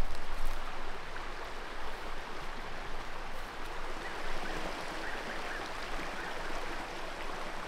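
Creek water running steadily over rocks, with a low rumble in the first second and faint bird chirps in the middle.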